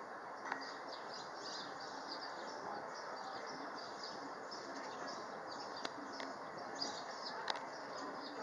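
Many small birds chirping in short, high calls over a steady outdoor background noise, with a few sharp clicks.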